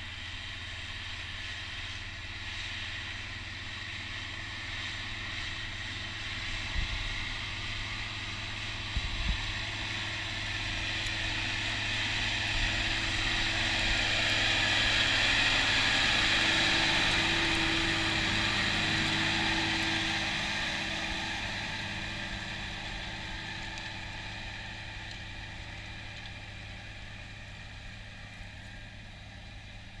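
County 1454 four-wheel-drive tractor's diesel engine working steadily under load as it pulls a four-furrow reversible plough through the soil. It grows louder as it approaches, is loudest as it passes close about halfway through, then fades as it moves away. Two brief thumps come a few seconds before it arrives.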